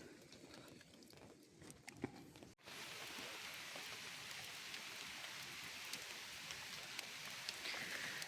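Faint scattered clicks and rustling, then, after a sudden cut about two and a half seconds in, a steady hiss of rain with scattered sharp drop ticks.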